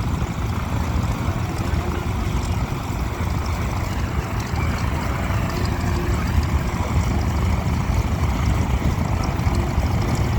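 Radial piston engines of vintage biplanes running on the ground, a steady low rumble with a fast pulsing beat.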